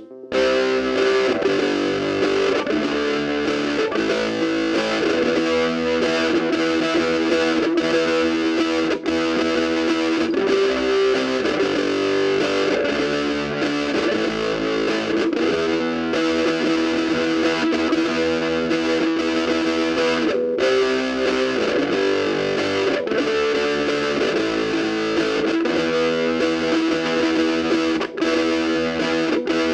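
Electric guitar played through a Cornel Fire Legend GA15 practice combo amp on its overdrive channel, giving a continuous distorted tone. The playing breaks off briefly about nine seconds in and again near the end.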